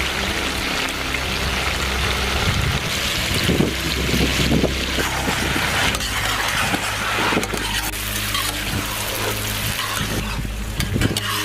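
Chicken pieces sizzling as they are stir-fried in hot oil in a pan, with occasional scrapes and knocks of metal tongs.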